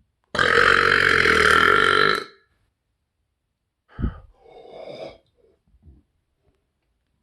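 A man's loud, sustained burp lasting about two seconds and ending abruptly, followed a couple of seconds later by a short low knock and some quieter breathy sounds.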